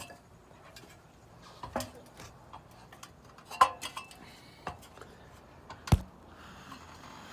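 Scattered light clicks and knocks, with two sharper ones about three and a half and six seconds in, the second with a dull thud.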